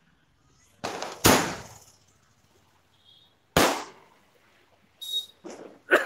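Diwali sky shot firework going off: a sharp, loud bang about a second in as it launches, then a second bang about two and a half seconds later as it bursts overhead. A faint crackle follows near the end.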